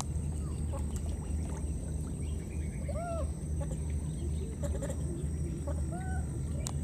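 A few short animal calls, each a quick rise and fall in pitch, about three seconds in and again near the end, over a steady low hum.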